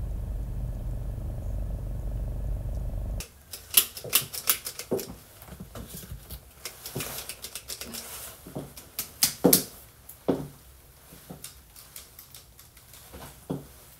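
Steady low rumble of a car cabin that cuts off abruptly about three seconds in, followed by irregular sharp clicks and taps of uneven loudness, the loudest a few seconds after the cut and again near the middle.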